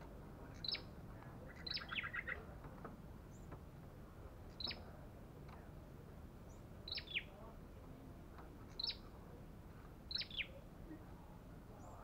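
Caged tailorbird calling: short, sharp, high notes, each falling quickly in pitch, given about six times at intervals of one to two seconds, with a quick stuttering rattle about two seconds in.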